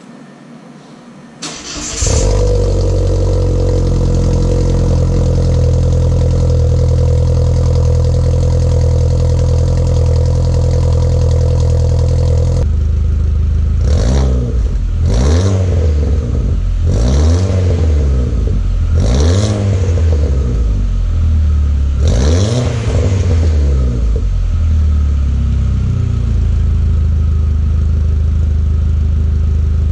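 Audi A4 B6 1.8T's turbocharged four-cylinder engine heard at the exhaust, on its current Magnaflow exhaust. It starts about two seconds in and settles to a steady idle. Between about 14 and 23 seconds in it is revved in five quick blips, each rising and falling back, before idling again.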